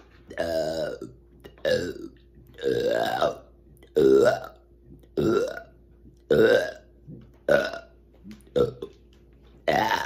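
A woman burping on command: a quick string of about eight loud burps, each lasting under a second, with short pauses between them.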